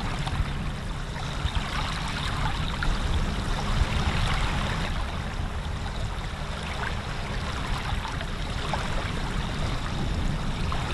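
Running water of a stream, a steady even rush with no breaks.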